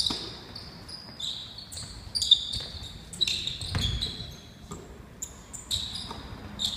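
Basketball being dribbled on a wooden gym floor, with dull thuds, and sneakers squeaking on the floor in many short, high chirps as players cut and stop, echoing in the large gym hall.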